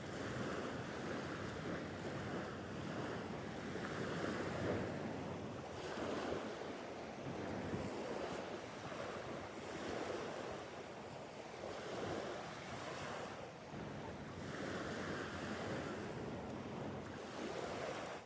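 Small waves breaking and washing up a pebbly sand shore. The surf swells and eases every couple of seconds.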